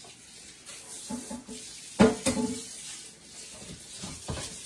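Tap water running in a sink while a Red Copper 5 Minute Chef electric meal maker is rinsed out. There is a loud clunk of the appliance about two seconds in and a softer knock near the end.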